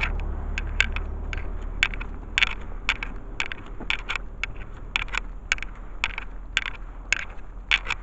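A rapid, irregular run of short sharp clicks and crackles, about three to four a second, from someone walking with a handheld camera: footfalls and the camera being handled. A low rumble under them fades out after the first few seconds.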